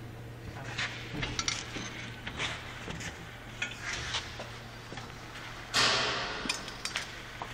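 Scattered light metallic clinks and knocks from handling and work around the car, over a steady low hum, with one louder short rush of noise about six seconds in.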